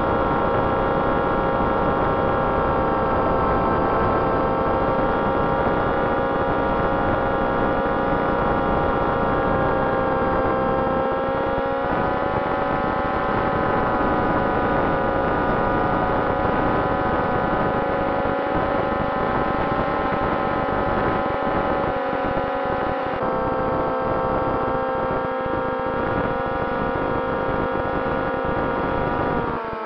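Twin 2212 brushless motors with pusher propellers whining steadily in flight, heard through the plane's onboard camera with a rush of air noise beneath. The pitch rises slightly about twelve seconds in, dips about twenty-three seconds in, and falls as the throttle comes back near the end.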